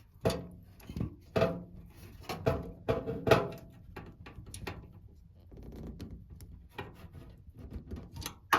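Knocks and clunks as a motherboard is handled and fitted into a PC case: several sharp knocks with brief ringing in the first few seconds, then softer rattling and a sharp click near the end.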